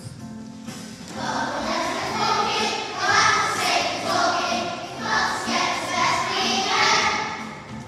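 Children's choir singing a song over instrumental accompaniment, the voices coming in about a second in after a short instrumental lead-in.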